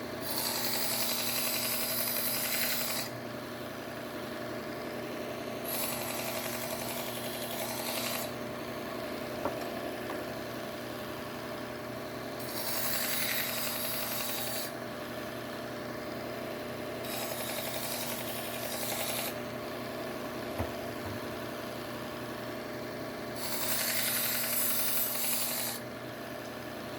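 Slow-speed Bucktool belt sharpener running steadily while a knife blade is drawn across the moving abrasive belt five times. Each pass is a gritty hiss lasting two to three seconds, with the steady motor hum between passes.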